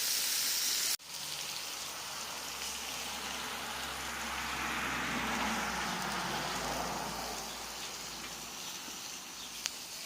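Meat sizzling on a barbecue grill: a steady hiss that changes abruptly about a second in, then carries on with a low rumble underneath.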